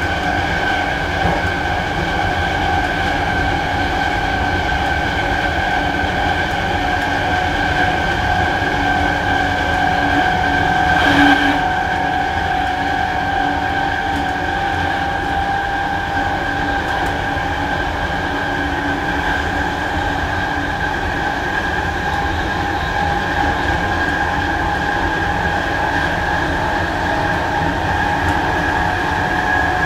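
Traction motors of a Sydney Trains camshaft-controlled electric train whining steadily at speed over the rumble of wheels on track. The whine rises slightly in pitch near the end, and there is a single knock about eleven seconds in.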